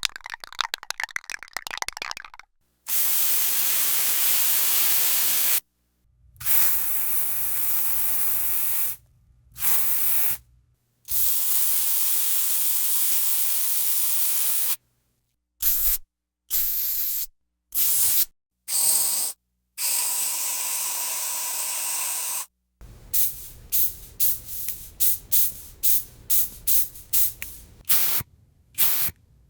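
Aerosol spray can: a quick rattle of the mixing ball as the can is shaken. Then several long hisses of spray a few seconds each and some shorter ones, and near the end a rapid run of short spray puffs.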